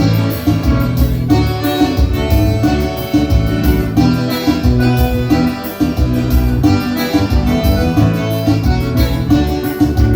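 Live dance band playing instrumental music with guitar and a steady beat.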